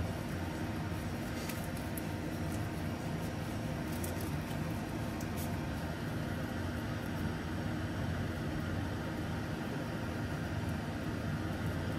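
A steady low hum, like a running fan or appliance, with a few faint light clicks in the first half.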